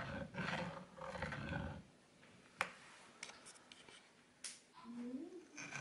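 Pencil scraping along rough sawn board as an arc is drawn with a string-and-screw compass, a raspy stroke lasting about two seconds. A few light clicks follow, and a short rising tone comes near the end.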